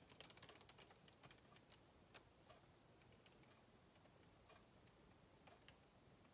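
Near silence, with faint, irregular small clicks and ticks scattered throughout.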